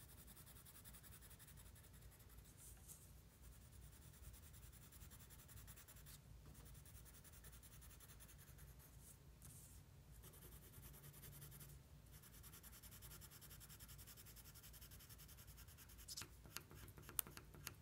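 Faint scratching of a Crayola colored pencil shading on paper, with a few light ticks near the end.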